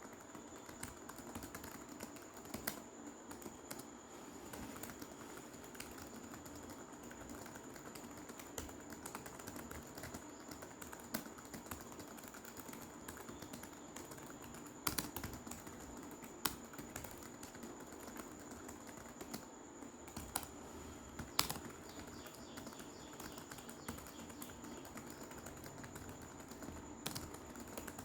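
Computer keyboard being typed on fast in a steady stream of key clicks, with a few noticeably louder keystrokes scattered through.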